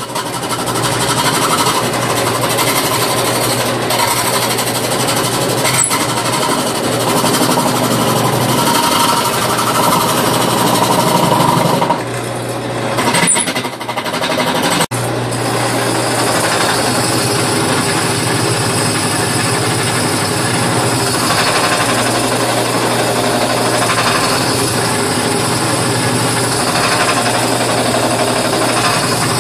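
Small benchtop drill press, laid on its side as a makeshift lathe, running while a hand chisel cuts a spinning wooden wheel round: a steady motor hum under loud, continuous cutting noise. The sound dips briefly about twelve seconds in, then carries on.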